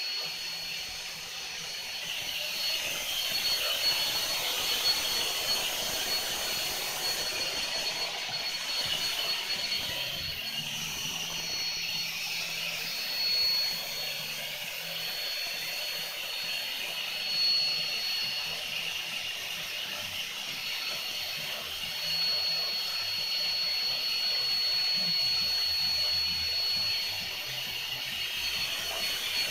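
Electric blower fan running steadily to keep a large inflatable whale inflated: a constant rush of air with a thin high whine.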